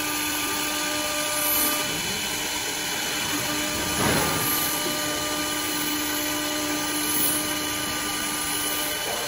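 CNC wood lathe machining a rotating wooden spindle blank: a steady motor whine over the rough, continuous noise of a cutter spindle milling grooves into the wood, swelling briefly louder about four seconds in.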